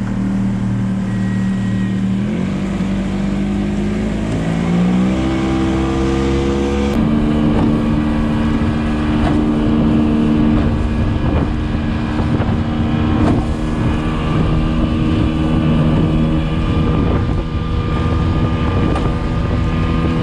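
Tiller-steered outboard motor on a flat-bottom boat speeding up, its pitch rising over a few seconds, then running steadily at speed across the water, with some wind noise.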